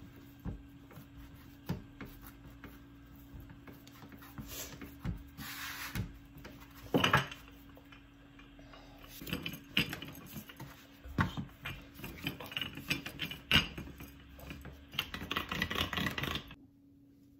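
Hands kneading a ball of dough on a wooden cutting board, with scattered soft knocks and a loud knock about seven seconds in. Then a wooden rolling pin rolls the dough out on the board, rubbing with irregular thumps, and the sound stops suddenly near the end.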